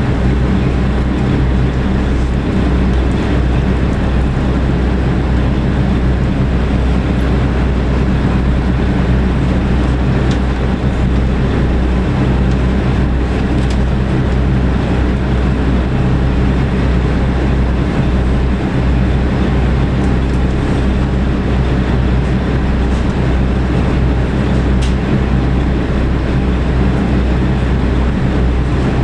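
JNR KiHa 47 diesel railcar's engine idling steadily while the car stands at a station, heard from inside the cabin as a constant low rumble.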